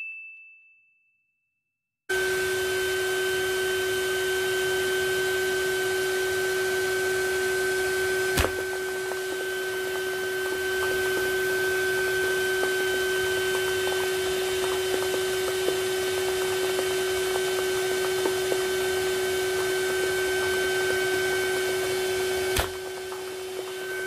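A short intro chime dies away in the first second. Then a Numatic Hetty HET 200A vacuum cleaner runs with a steady whine over a hiss, a ping-pong ball held by suction over its hose inlet. There is a click about eight seconds in, and another near the end as the ball comes off the inlet, after which the running sound drops a little quieter.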